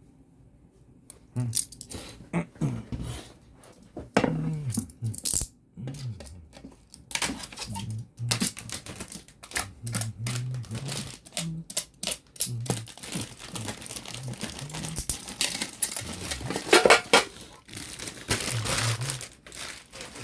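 Wok packaging being handled during unboxing: rustling and crinkling with many irregular clicks and knocks, the loudest near the end.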